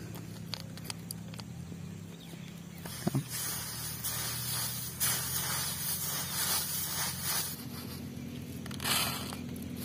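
Hands mixing dry puffed rice (muri) with a fried snack mix, a dense rustle of shifting grains that starts about three seconds in and swells louder as handfuls are scooped. A few faint clicks come before it, with a low steady hum underneath.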